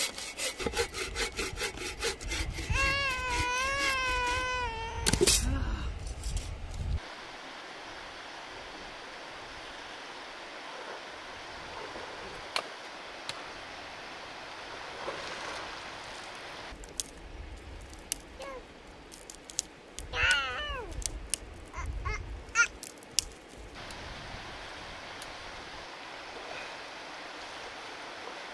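Hand sawing of wood in fast, even strokes that stop about five seconds in, overlapped near the end by a high, wavering voice-like call. After that comes quiet outdoor ambience with a few clicks and a brief run of short falling calls about twenty seconds in.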